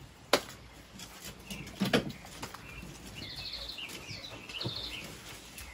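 Small birds chirping in the background: two short runs of rapid high chirps, about three and four and a half seconds in. There is also a sharp click near the start and a knock about two seconds in.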